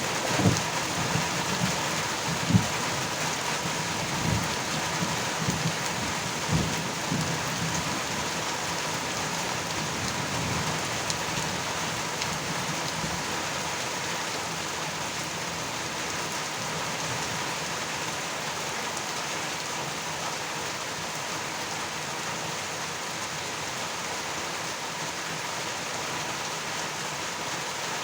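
Steady heavy rain falling, with a low rolling rumble of thunder in the first several seconds that dies away, leaving only the even rush of the rain.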